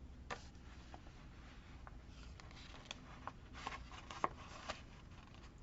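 Paper and sticker sheets being handled on a desk: light rustling with scattered small taps and clicks, busiest a little past halfway, with one sharper tap about four seconds in.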